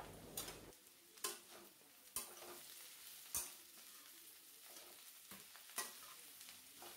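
Sliced onions frying in oil in a steel kadhai, a faint sizzle, while a metal spatula stirs them, scraping and tapping against the pan several times at irregular intervals.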